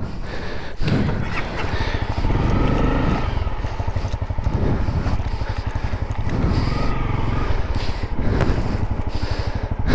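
Single-cylinder four-stroke engine of a Honda CRF250L dual-sport motorcycle running at low speed, with steady firing pulses and no sharp revving.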